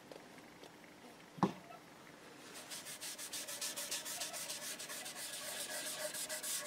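A cloth pad rubbing stain into a bare ash guitar body in quick, repeated back-and-forth strokes, starting about two and a half seconds in. There is a single sharp knock a little over a second in.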